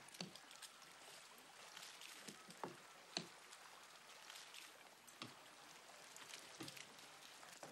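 Faint sea water lapping and washing against a fishing net at a boat's side, with a few light splashes, the clearest about three seconds in.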